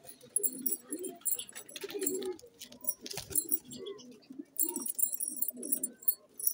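Black Karblai pigeons cooing over and over, low coos coming about every second, with scattered short sharp high clicks in between.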